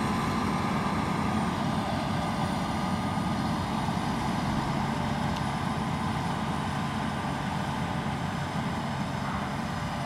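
CLAAS Lexion 7500 combine harvester running steadily while harvesting, an even mechanical drone with a faint steady hum in it.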